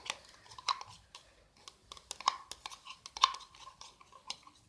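Liquid soap and sugar being stirred together for slime, with irregular light clicks and taps of the stirrer against the container.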